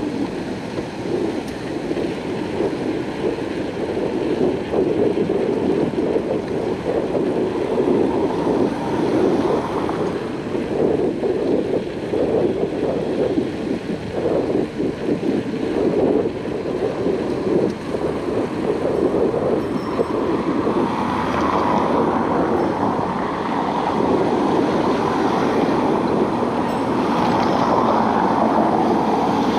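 Wind buffeting the microphone of a camera on a moving bicycle: a dense, fluttering rush. A higher hum of road traffic joins it in the last third.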